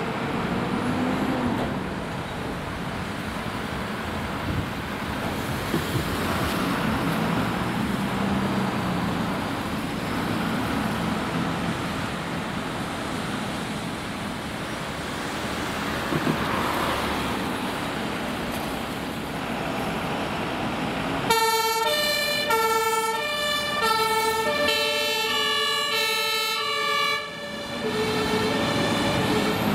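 Diesel engines of Mercedes fire engines running as they pull out of the station. About 21 s in, a two-tone fire engine siren starts, stepping back and forth between its two notes for about seven seconds before stopping, with engine noise again near the end.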